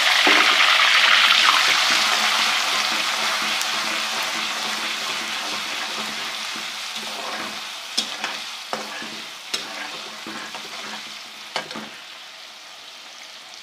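Ginger-garlic paste and chopped onion frying in hot ghee. The sizzle is loud at first and gradually dies down, with a few sharp clicks of a stirring utensil against the pan in the second half.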